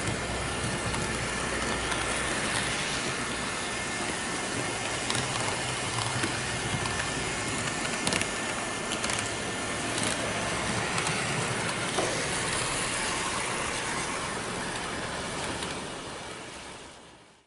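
Arnold N-scale model of a Renfe series 440 electric unit running along layout track: a steady running noise with occasional short clicks. It fades out near the end.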